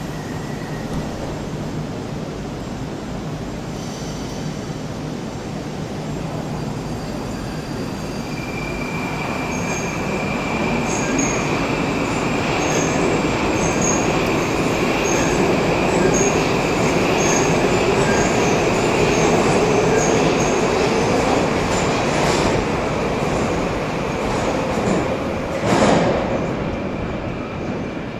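Moscow Metro 81-765 "Moskva" train pulling out of the station. Its electric traction drive whines, and a lower tone rises in pitch as it speeds up, with regular clicking from the wheels. The noise builds for several seconds, then eases as the train leaves, and a loud thump comes near the end.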